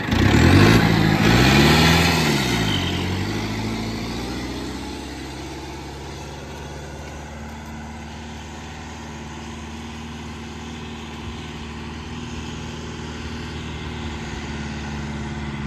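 Turbocharged tractor diesel engine revving up and down twice as it pulls off under load, then running steadily and fading into the distance as it drags a harrow through dry soil.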